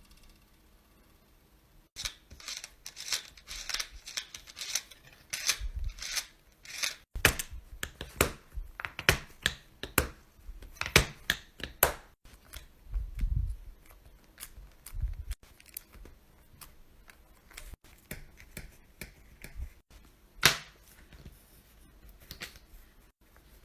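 Plastic fidget toys being handled: runs of quick clicks, pops and crackles, with a few soft low thuds, changing abruptly every few seconds from one toy to the next.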